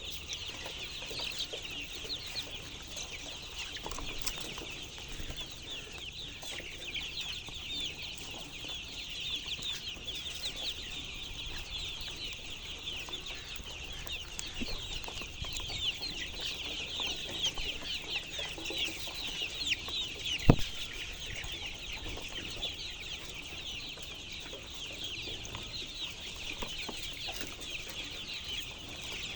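A large flock of chickens calling together in a dense, constant chorus of overlapping high-pitched calls. A single sharp knock sounds about two-thirds of the way through.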